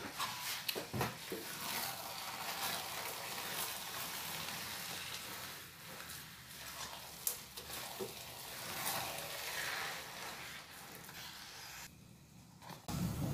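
Wooden spatula stirring and folding sticky glutinous rice and brown sugar in a hot pan, with a soft sizzle and occasional scrapes and clicks against the pan. The sound drops away briefly near the end.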